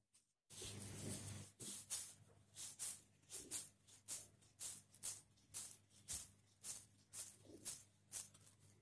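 Faint, gritty rustles of a crumbly roasted besan (gram flour), sugar and dry-fruit mixture being squeezed and rolled between the fingers and palm into a ladoo, about two rustles a second. A faint steady hum runs underneath.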